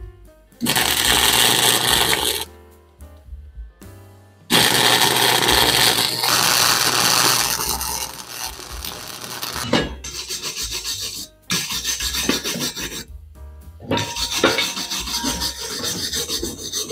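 Wire-feed welder welding a motorcycle exhaust pipe: a short burst of arc noise, then a longer one lasting several seconds. From about ten seconds in, a hand wire brush scrubs the fresh weld in quick back-and-forth strokes, about three a second.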